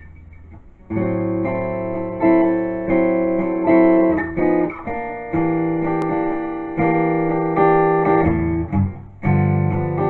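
Acoustic guitar strummed in a blues intro, chords ringing on from about a second in, with a few brief breaks between phrases.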